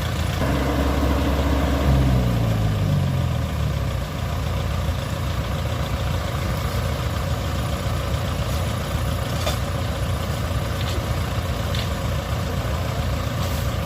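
Heavy farm-machine engine running steadily. Its revs are raised early on, then the pitch falls away between about two and four seconds in as it drops back to a steady run.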